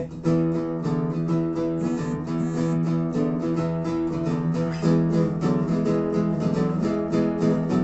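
Guitars strumming chords in an instrumental break of an Americana song, with no singing, in a quick, even strumming rhythm.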